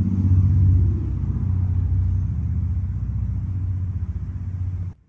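Steady low motor or engine rumble, a little louder in the first second, cutting off suddenly near the end.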